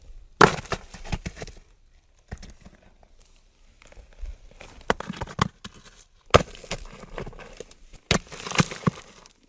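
Rock and stone sound effects: sharp cracks followed by bursts of crumbling, clattering stone, the loudest crack about half a second in and another a little after six seconds.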